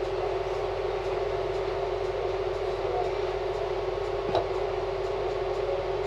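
Mabru 17,000 BTU inverter-type marine air conditioner running on fan speed 1, a steady hum with one strong held tone, its compressor and pump still on while its current draw falls. A brief click about four seconds in.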